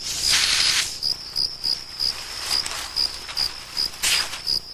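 Crickets chirping steadily, about three high chirps a second. Over them, two loud bursts of hissing come from a threatened hog-nosed snake: a longer one at the start and a shorter one about four seconds in.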